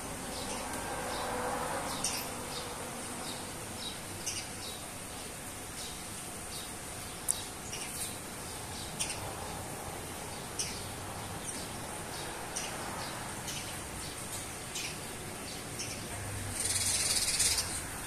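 Sparrows giving short, sharp chirps, repeated every half second to a second or so, with a second-long rush of noise near the end as a bird takes off.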